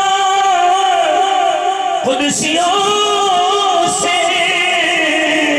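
A man reciting an Urdu naat unaccompanied, drawing out long held, wavering notes into a microphone, with short breaks about two and four seconds in.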